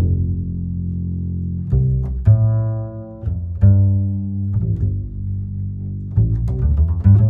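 Background music: a line of low plucked string notes in the double-bass register, each note starting sharply and dying away.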